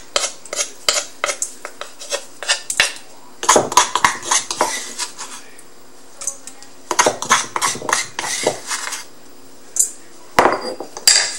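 A wooden spatula tapping and scraping against a stainless steel bowl and a granite mortar, with the stone pestle knocking in the mortar: quick irregular clicks and knocks in bunches, the heaviest cluster near the end.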